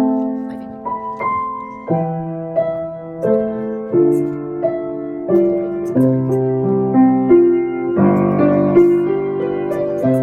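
Background piano music, a slow melody of held notes over chords.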